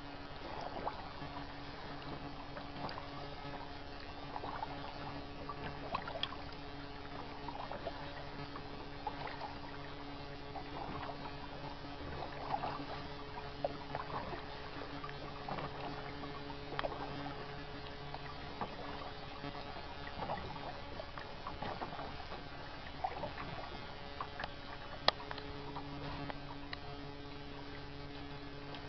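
Kayak paddle strokes: the blade dipping and swishing through lake water every second or so, with drips, over a steady low electrical hum. One sharp click stands out about three-quarters of the way through.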